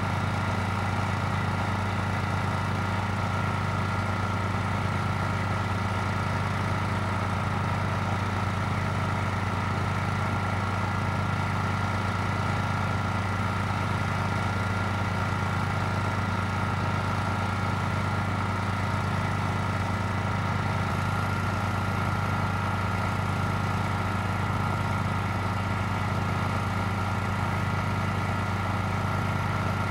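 A steady idling engine drone with a slow, even throb a little more than once a second.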